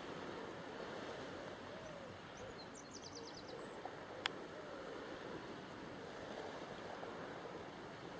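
Steady seaside ambience of wind and distant surf. About three seconds in there is a brief rapid run of high chirps, and a single sharp click comes a little after four seconds.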